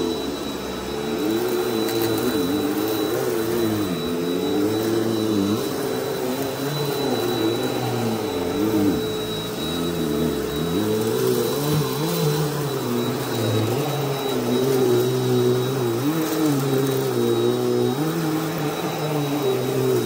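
Bissell PowerForce Helix Turbo Rewind upright vacuum running steadily with a thin high whine, its lower hum rising and falling in pitch as it is pushed back and forth over a shag rug.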